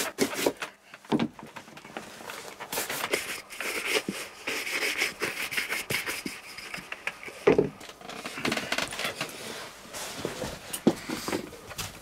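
Leather shoes and boots being handled and set down on a wooden shelf: scattered knocks and clicks with rustling in between.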